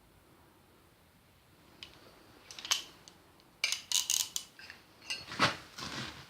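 Metal hand tools and parts clinking and clattering against each other in irregular bunches, starting about two seconds in, with a heavier knock near the end.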